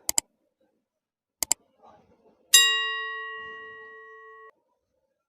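Two quick double clicks, then a single bell-like metallic ring that dies away over about two seconds and cuts off suddenly.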